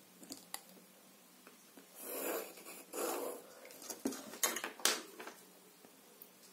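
Pencil drawn twice along a clear plastic ruler across paper, two short scratchy strokes about two and three seconds in, marking diagonal guide lines. These are followed by several sharp clicks and taps as the ruler and pencil are lifted and set down on the cutting mat.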